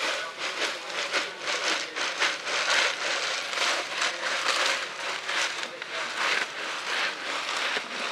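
Busy outdoor market ambience: a crowd's indistinct chatter mixed with a continuous crackling, hissing noise.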